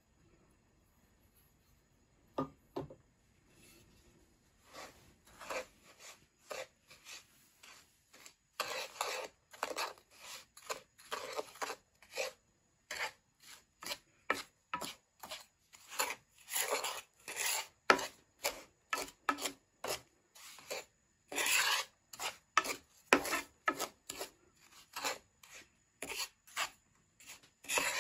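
Wooden spatula scraping and stirring dry, still-unmelted granulated sugar around a nonstick frying pan, in repeated short strokes about two a second. The first few seconds are quiet apart from a couple of light knocks, and the stirring starts about four seconds in.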